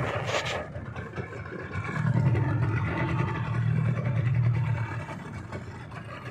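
An engine running, with a steady low hum that grows stronger about two seconds in and eases off near five seconds, over a wash of noise.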